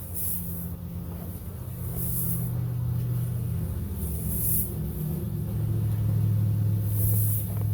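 Low, steady rumble of a motor vehicle's engine, slowly growing louder.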